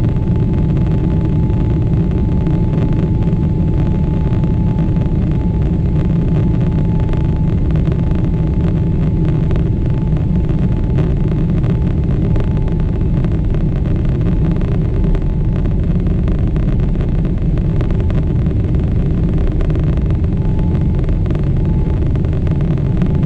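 Cabin noise in a Boeing 777-300ER climbing after takeoff: the steady, loud rumble of its GE90 engines and the airflow past the fuselage, with a faint steady whine over it.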